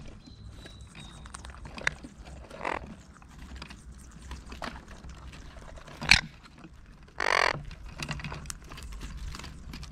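Monk parakeets pecking and tearing at a lump of raw pork fat, with scattered beak clicks and one sharp knock about six seconds in. About a second later one parakeet gives a short harsh squawk.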